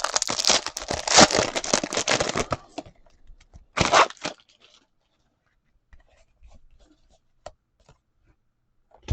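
A 2022-23 Donruss basketball card pack wrapper being torn open with a crinkling rip for about two and a half seconds, then one more short crinkle around four seconds in, followed by a few faint clicks of cards being handled.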